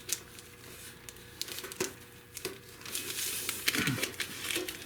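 Crinkling and rustling of a paper template being handled and pressed into place, with scattered light clicks, busier in the second half.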